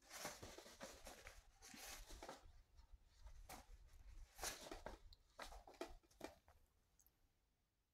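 Faint, irregular rustling and scraping in short strokes, dying away about six and a half seconds in.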